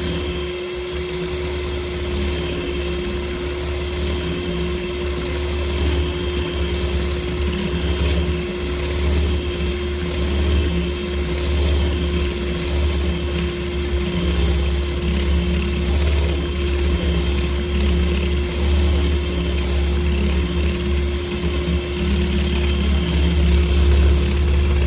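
Electric hand mixer running steadily, its twin beaters whipping egg whites and sugar in a glass bowl, with a constant motor hum.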